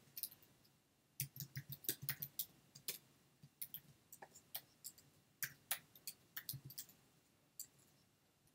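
Typing on a computer keyboard: quick runs of sharp key clicks with short pauses between them.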